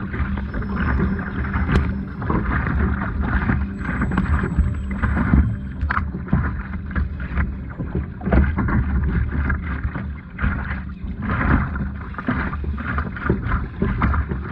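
Water sloshing and splashing around a kayak, with wind buffeting the microphone.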